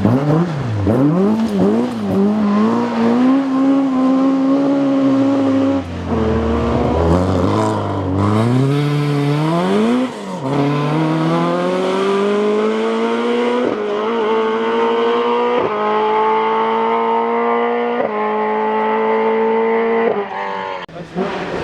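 Ford Escort rally car engine at full effort: it revs up and down quickly at first and slows about six seconds in. It then accelerates hard, changing up through the gears in short steps every couple of seconds, and lifts off near the end.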